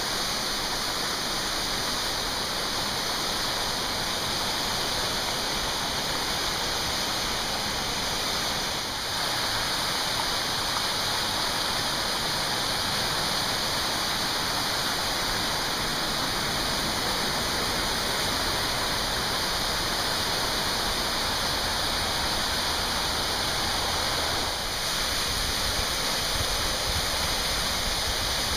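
Warren Falls, a waterfall swollen by heavy rain, pouring down a basalt cliff into a rocky pool: a steady, continuous rush of falling water.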